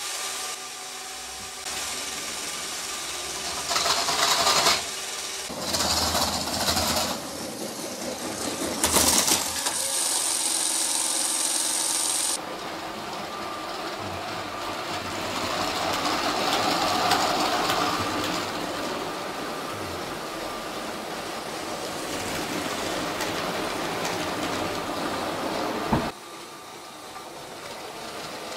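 Motorised LEGO trains running on plastic track, a steady motor whir with wheel clatter, broken by several louder bursts in the first half. A sharp click comes near the end.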